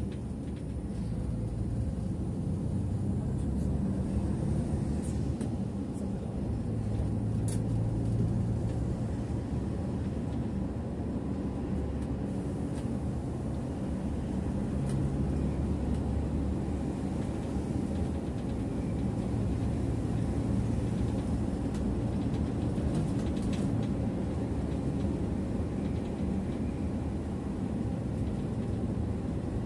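Mercedes-Benz bus driving along a road, heard from the driver's seat: a steady low drone of engine and tyre noise whose engine note rises and falls a little.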